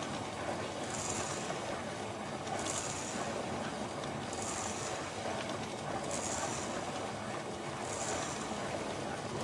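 Motor-driven cycloid drawing machine running: a steady mechanical whirr of turning gears, with a soft high swish repeating roughly every 1.7 seconds.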